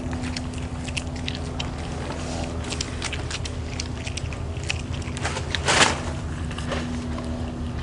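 Sea otter crunching and chewing clams, with irregular sharp cracks of shell and one louder, longer crunch about six seconds in, over a steady low hum.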